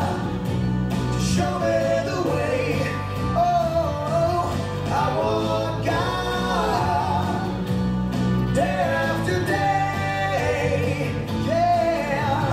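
A recorded song playing back for a puppet lip-sync: a voice singing a melody over steady instrumental backing.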